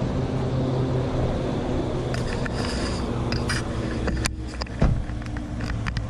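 A motor vehicle engine runs steadily with a low hum, over highway traffic noise. From about two seconds in, short clicks and scrapes of the camera being handled come in, with a sharp knock a little after four seconds.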